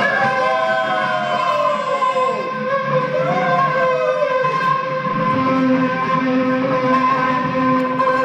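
Live rock duo of electric guitar and drum kit playing. Held guitar tones ring steadily throughout, with sliding, bending pitches over the first few seconds.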